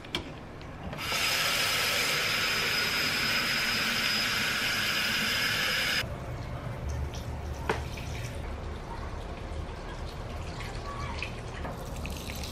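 Water sprinkling from a watering can onto potted geraniums: a loud, even spray hiss for about five seconds. It then gives way suddenly to a softer trickle of water running into the soil of a pot, with a single click partway through.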